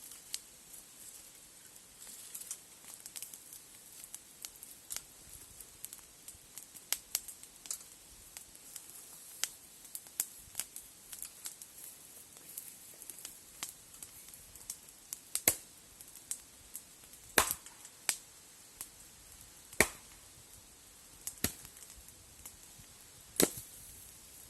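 Campfire wood crackling: irregular sharp pops and snaps over a faint hiss, with a few louder pops in the second half.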